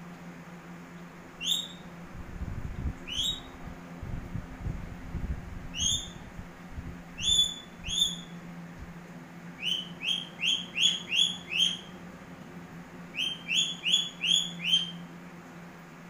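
Indian ringneck parakeet giving short, shrill rising calls: a few single calls spaced a second or two apart, then a quick run of about six, and a run of about five near the end, over a steady low hum.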